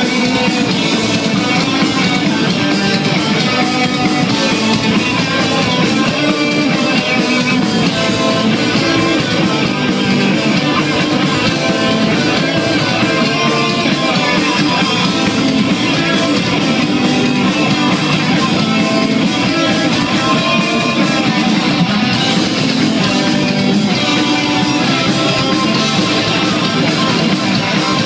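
Heavy metal band playing live, with several electric guitars going at once, loud and steady.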